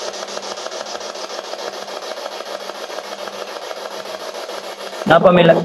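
Spirit box radio scanner sweeping through stations: a steady hiss of static chopped into rapid, even pulses, over a low steady hum. A voice comes in near the end.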